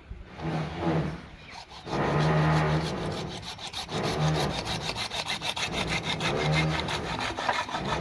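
Hand hacksaw cutting through a white PVC pipe fitting, rasping in repeated back-and-forth strokes.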